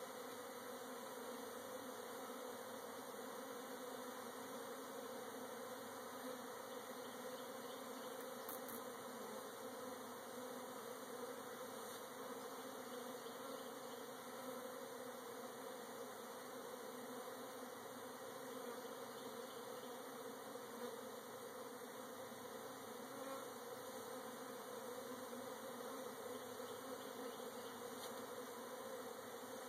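Honey bees buzzing in a steady, even hum as a cutout colony is being hived.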